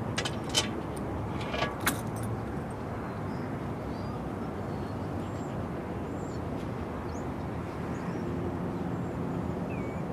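Steady low outdoor background rumble, with a few sharp clicks in the first two seconds and faint high chirps later on.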